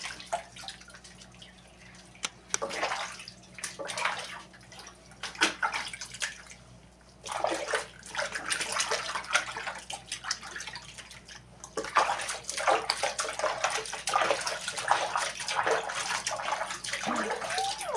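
Water splashing and sloshing in a laundry tub as hands scoop water over a small wet dog and scrub its fur. The splashes are sparse at first and become steadier and busier from about seven seconds in.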